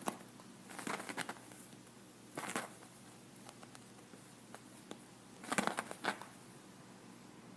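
Rabbit scrabbling with its paws at a fabric cushion, the fabric rustling and scratching in short bursts: about a second in, around two and a half seconds, and a longer spell around five and a half to six seconds.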